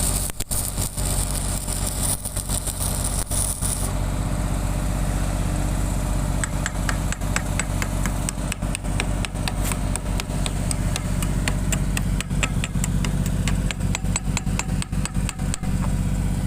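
An engine, most likely an engine-driven welding generator, runs steadily. For the first four seconds a high hiss, plausibly the welding arc, sounds over it and then stops. From about six seconds in comes a long run of sharp taps.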